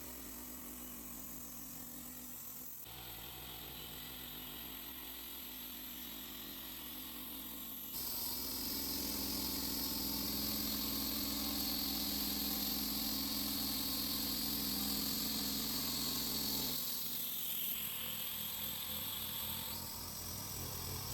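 Portable bandsaw sawmill running, its engine and band blade cutting through a white oak log. The sound grows louder and brighter about eight seconds in and drops back near the end.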